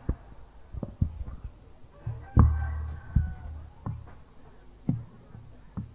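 Scattered knocks and bumps, about seven of them, irregularly spaced. The loudest comes about two and a half seconds in and is followed by a low rumble for close to a second.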